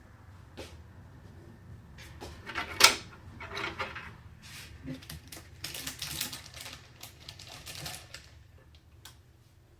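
Irregular clicks, taps and rattles of computer hardware being handled during a PC build, with one sharp click about three seconds in and a busier stretch of rattling a little past the middle.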